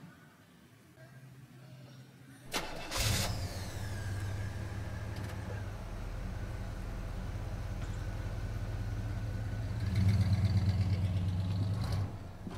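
A vehicle engine starting about two and a half seconds in, then running steadily, louder for about two seconds near the end before dropping back.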